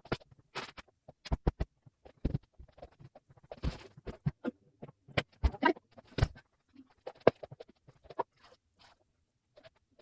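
Household cleaning sounds played back sped up: a quick, irregular clatter of small knocks, clicks and brushing scrapes.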